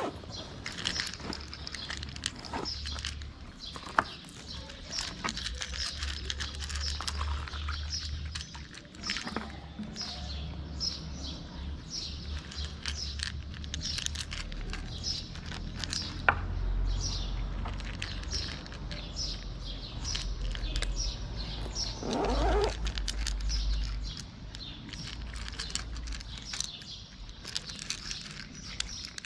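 Street cats crunching dry kibble from plastic bowls, with scattered sharp clicks, two of them loud, while small birds chirp over and over in the background. A low rumble runs underneath, and a brief wavering, gliding sound comes about three-quarters of the way through.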